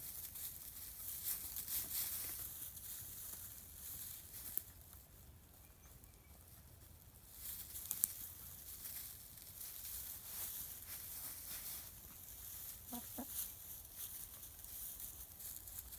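Buff Orpington hens rustling and scratching through dry straw as they peck, with occasional soft clucks, one short call about 13 seconds in.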